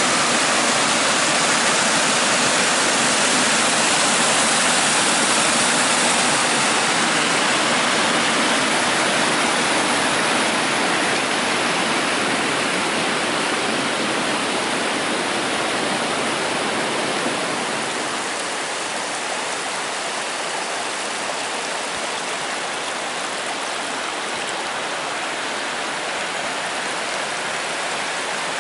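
Waterfall rushing: a steady, dense white-water roar, easing slightly about two-thirds of the way through.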